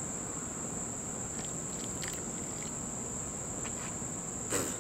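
Crickets chirping in a steady, continuous high trill. A few faint clicks sound in the middle, and a short noisy rustle comes near the end.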